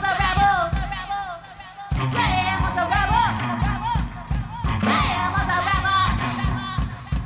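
Rock band playing live: a woman singing over electric guitar and a steady drum beat. The music drops back for about a second, then the full band and vocal come back in.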